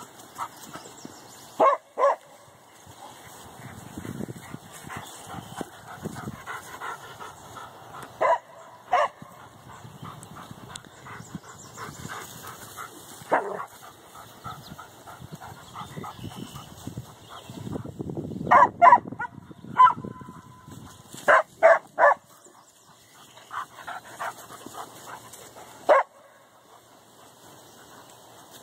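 Dogs barking at cattle across a fence: sharp single barks and quick pairs a few seconds apart, with a busy run of barks about two-thirds of the way through.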